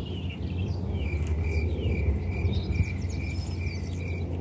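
Small birds chirping, with one high note repeated about four times a second, over a steady low hum.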